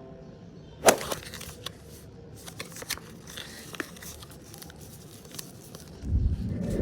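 Crinkling, crackling and tearing of packaging being handled, with a sharp click about a second in and scattered small crackles after it. A louder low thud comes near the end.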